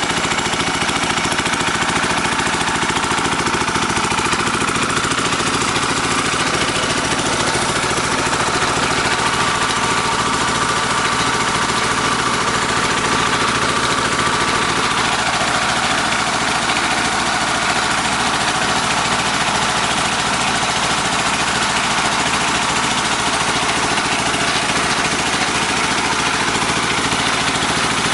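Engine of a portable groundwater well-drilling machine running steadily, with a fast, even pulse.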